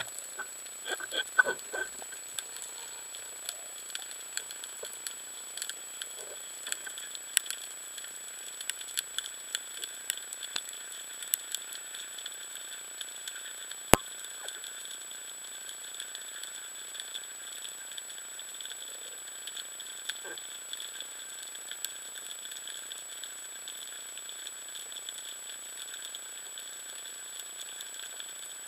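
Underwater ambience picked up through a waterproof camera housing: a steady faint hiss with a thin high tone, scattered with small clicks and crackles. One sharp click about halfway through stands out as the loudest sound.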